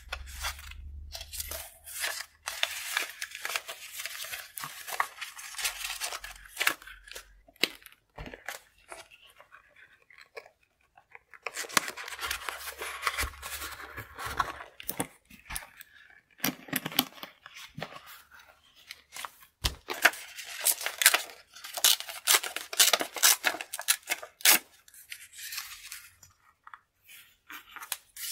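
Thin newspaper-print collage paper rustling as it is handled, and torn by hand with crackly ripping strokes, in several spells separated by short pauses.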